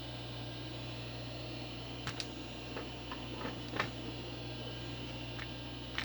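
A few scattered key presses on an IBM 106-key keyboard with Alps white switches, sharp separate clicks at an unhurried pace starting about two seconds in, over a steady electrical hum and hiss.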